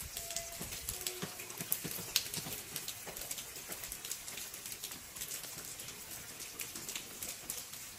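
Light rain with irregular drips and patters ticking on hard surfaces over a steady soft hiss.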